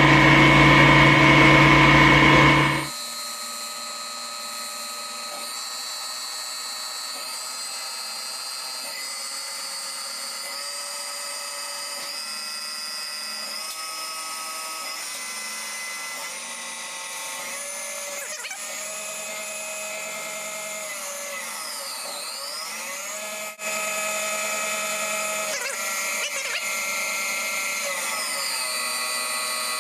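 CNC lathe running a part program: a loud, noisy first few seconds, then the spindle and axis drives whine in several steady tones that step and glide in pitch as the machine changes speed, dipping and recovering past the middle, with a sharp click followed by a slightly louder run toward the end.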